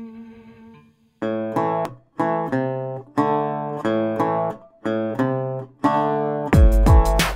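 Intro music: strummed guitar chords in a steady rhythm, with a held chord fading out at the start and drums joining near the end.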